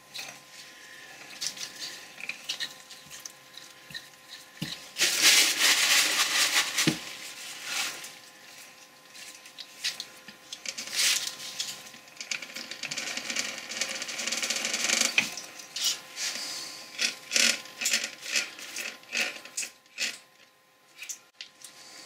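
Workbench handling noises: paper rustling loudest for a few seconds, then a run of sharp clicks, roughly two a second, from a pump-action oil can being worked to oil the gears of a lathe apron.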